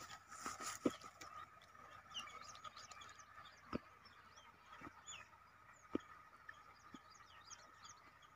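Faint outdoor ambience: many small birds chirping over a steady faint high hum, with a few soft knocks scattered through it.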